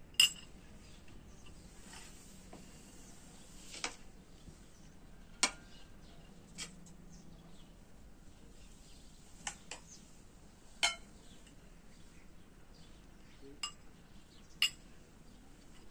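Ceramic plates and bowls clinking as they are handled and set down: about nine sharp clinks at irregular intervals, a few with a short ringing tone.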